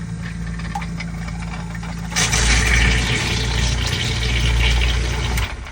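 Brand-new 1/3 hp submersible sump pump running with a steady electric motor hum. About two seconds in, a loud rush of churning water joins it, and both stop abruptly near the end.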